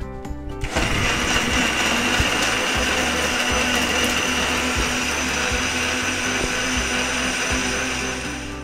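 Electric countertop blender switching on about a second in and running steadily at full speed, liquidising ripe bananas with honey, lime juice and water into juice.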